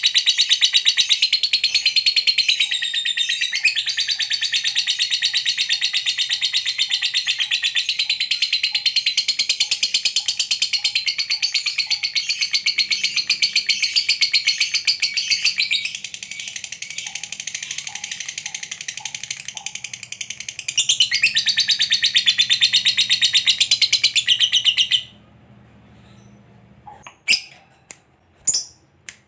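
Lovebird giving a long, unbroken, rapid high-pitched chattering trill (the 'ngekek panjang' that breeders prize). It cuts off about 25 seconds in and is followed by a few short sharp squawks near the end.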